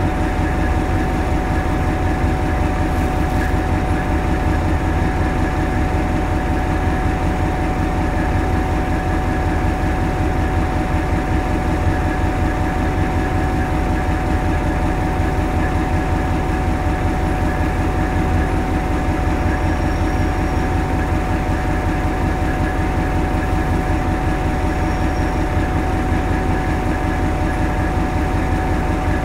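The Hastings DEMU's English Electric four-cylinder diesel engine running steadily, heard from inside the driving cab: a deep, even rumble with a steady high tone over it.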